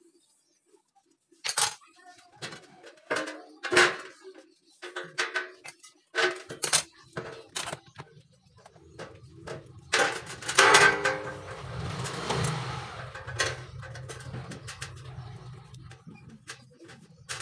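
Light-steel neon-box frame clanking and knocking as it is handled, a string of separate metallic knocks, then a longer scraping rattle about ten seconds in that fades to a low rumble.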